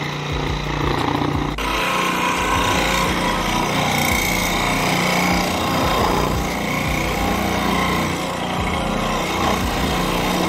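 Scroll saw running, its reciprocating blade cutting through a wooden board. The sound changes abruptly about one and a half seconds in, then runs steadily.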